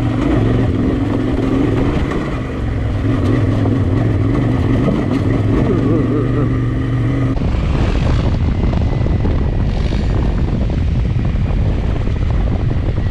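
Adventure motorcycle engine running at a steady cruise. About seven seconds in the sound changes abruptly: the engine note drops away and a steady rush of wind on the microphone and road noise is left.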